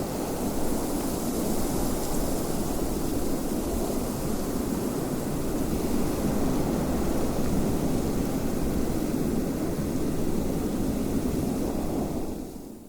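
Steady wind blowing, an even rushing noise, fading out near the end.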